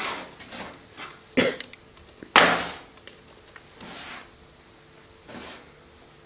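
Hands kneading shortcrust pastry dough on a wooden board: soft pressing and rubbing, with two short louder sounds about one and a half and two and a half seconds in, the second the loudest.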